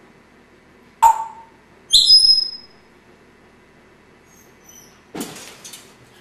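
African grey parrot vocalizing: a short sharp call about a second in, then a loud high whistle, then faint chirps, and a harsh, noisy sound near the end.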